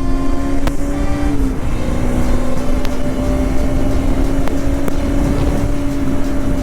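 Bajaj Pulsar NS200's single-cylinder engine running at steady revs while riding, over a continuous low rush of noise. The engine note drops slightly about a second and a half in, then holds.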